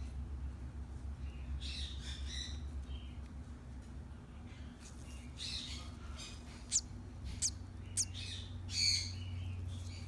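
A newly hatched sun conure chick peeping in scattered high calls, with three short, sharp chirps in quick succession about two-thirds of the way through. A steady low hum runs underneath.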